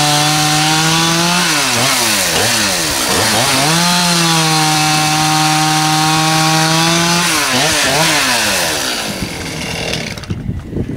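Two-stroke chainsaw cutting firewood rounds from logs. The engine holds a steady high pitch through two cuts, one of about a second and a half and a longer one of about three and a half seconds, and revs down and back up between them. Near the end the revs sweep up and down and drop away.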